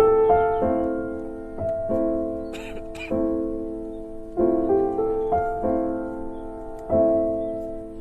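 Background piano music: slow, gentle chords, each struck and left to fade before the next, with a brief noise about two and a half seconds in.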